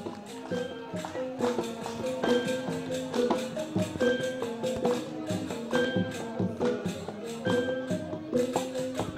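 Balinese gamelan ensemble playing: metallophones struck with mallets in a fast run of ringing notes, over a kendang drum played by hand.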